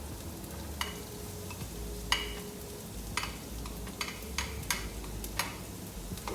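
Onion and garlic sautéing in hot oil in a pan, stirred with a utensil that clicks and knocks against the pan about eight times.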